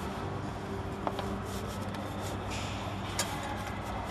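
Steady low hum of a multi-lane liquid packing machine, with a few sharp clicks and rustling as hands work the film through its rollers.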